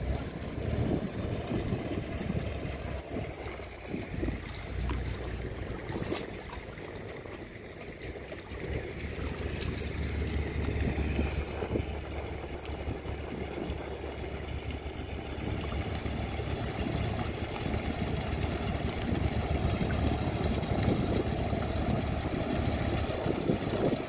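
Inboard diesel engine of a large wooden fishing boat running steadily at low revs, a continuous low rumble as the boat moves slowly past.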